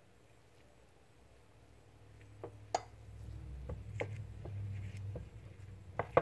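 A gloved hand kneads and squishes a thick paste of rice starch, potato juice and yogurt in a cut-glass bowl. It is a soft rubbing handling noise with scattered sharp clicks, starting about two seconds in.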